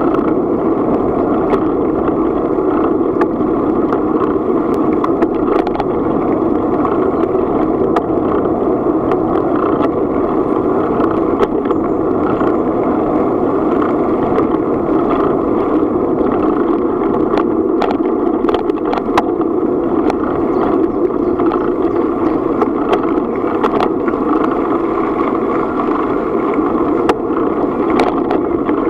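Steady wind and tyre noise from a bicycle ridden along a gravel path, with many small clicks and rattles scattered through it.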